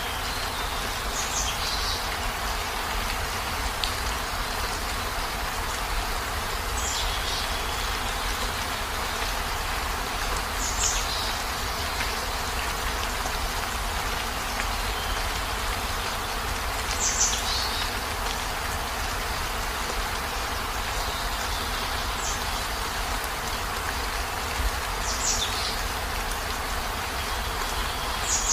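Steady rain, an even hiss of falling water. About seven short high chirps, each falling slightly in pitch, sound every few seconds above it.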